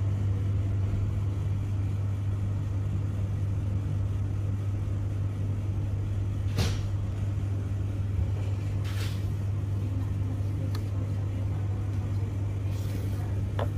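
A steady low hum, with a sharp click about six and a half seconds in and a few lighter clicks and a short scrape later, as the plastic and metal parts of a printer fuser unit are handled.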